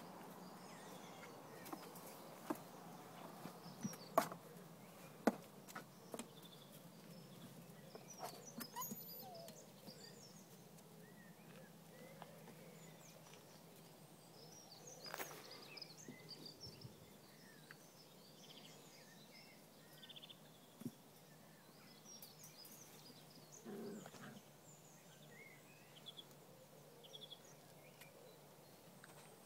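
Quiet outdoor background of small birds chirping, over a low steady hum. A few sharp clicks or knocks stand out in the first six seconds, the loudest about four and five seconds in.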